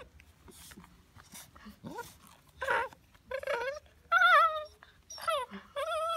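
A Belgian Malinois puppy whimpering: a string of high, wavering whines that begins about halfway through, the loudest near two-thirds of the way in.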